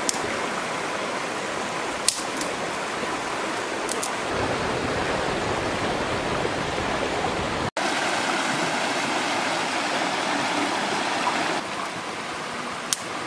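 Fast-flowing stream rushing over rocks, a steady wash of water, with a few sharp clicks about two seconds in, about four seconds in and near the end.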